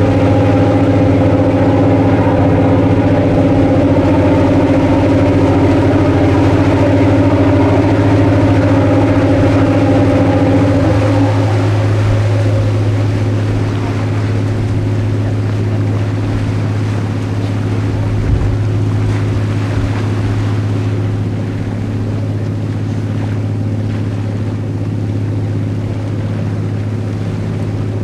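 The Garinko-go icebreaker's engines running with a steady low drone, over the rushing wash of its wake and wind. About eleven seconds in the higher engine tones fade away and the sound gets a little quieter, leaving the low hum and the water.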